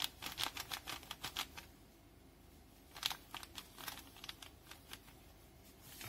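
Plastic pack of dry yeast crinkling in a hand as the yeast is poured out: a quick run of small crackles for the first second and a half, then a few more crackles about three to four seconds in.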